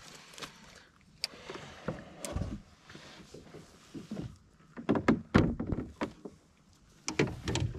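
Irregular knocks and clatter of a fishing rod and gear against a kayak's hull as a hooked fish is played and brought alongside, with a burst of loud knocks about five seconds in and more near the end.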